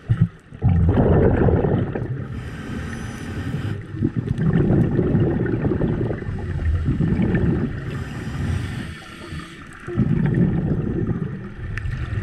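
Underwater scuba breathing: a diver's exhaled bubbles from the regulator gurgle past the camera in bursts about every three seconds, with quieter pauses between for the in-breaths.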